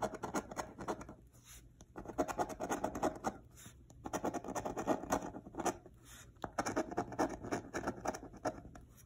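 A coin scratching the coating off a scratch-off lottery ticket: quick rasping strokes in four bouts, with short pauses between.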